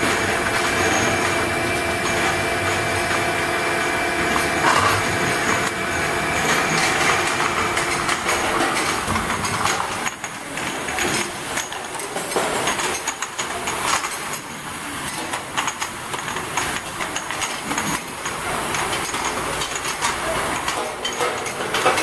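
Automatic ultrasonic bottle washing machine running with a steady mechanical hum and whining tones from its gear-and-chain drive. From about ten seconds in, the tones fade and glass bottles clink and rattle as they ride the rotating feed turntable.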